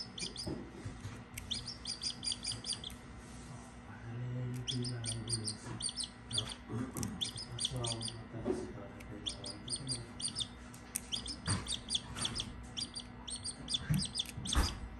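Australorp chick peeping: runs of quick, high, shrill cheeps, several a second, repeated with short pauses.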